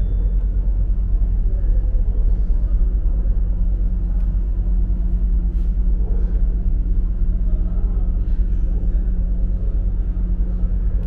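Steady low rumble of a car ferry's engines and machinery, heard from inside the ship, with a constant low hum running through it.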